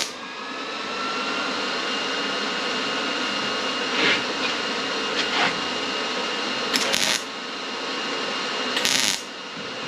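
MIG welder laying short tack welds on sheet steel: brief bursts of crackling hiss right at the start and again about seven and nine seconds in, over a steady machine whine.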